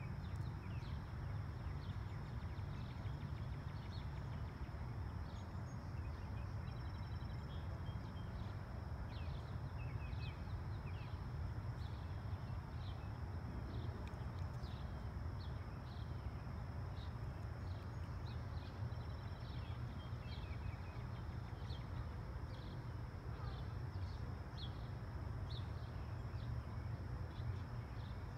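Outdoor ambience: a steady low rumble of outdoor noise, with faint short bird chirps repeating every second or so.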